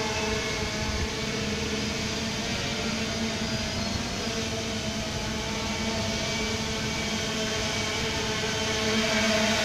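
3DR Solo quadcopter's motors and propellers humming steadily while it hovers, several steady pitched tones over a rushing wash. It gets a little louder about nine seconds in.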